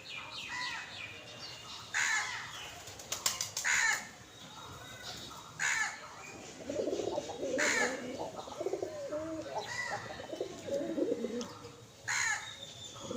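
Several birds calling: short, sharp calls come every second or two, with lower, wavering calls filling the middle stretch.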